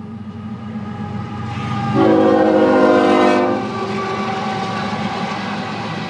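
GE diesel locomotives of a loaded CSX coal train passing close, engines running and growing louder, with the lead unit sounding its horn once, about two seconds in, for roughly a second and a half. After the horn, loaded coal cars roll past on the rails.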